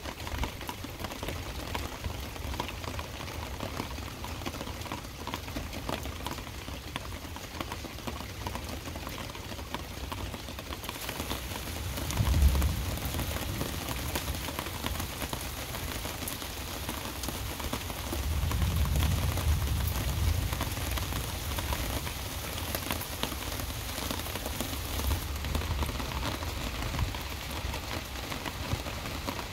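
Heavy rain falling steadily during a thunderstorm; the hiss of the rain grows stronger about eleven seconds in. Low rumbles swell briefly about twelve seconds in and again for a few seconds around eighteen to twenty-one seconds.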